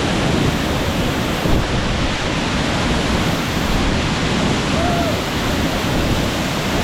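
Steady, loud rushing of Tiu Kelep waterfall's falling water, an even roar with no breaks.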